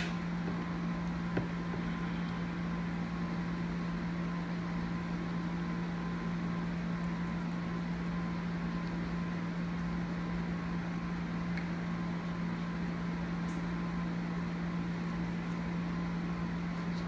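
A steady low machine hum over a faint hiss, with a faint tick about a second and a half in.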